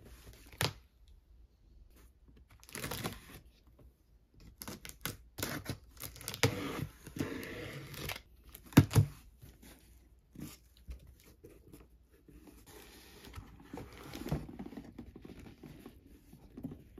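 Packing tape on a cardboard shipping box slit open with a blade, then the cardboard flaps opened and the box handled: scraping, tearing and rustling of cardboard, with a few sharp knocks, the loudest about halfway through.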